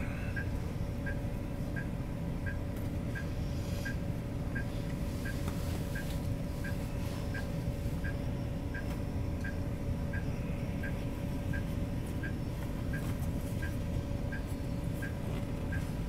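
Hino S'elega highway coach idling at a standstill with a steady low engine rumble, heard from inside the cabin. Over it the turn-signal indicator ticks evenly, about three ticks every two seconds.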